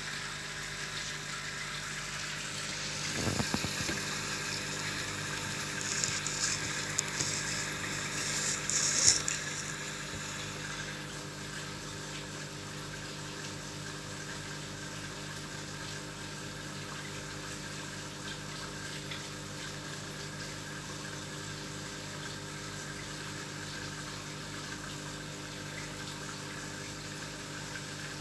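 Aquarium air pump humming steadily while air from its hose bubbles into the water. A few louder knocks and hissing bursts come between about three and ten seconds in.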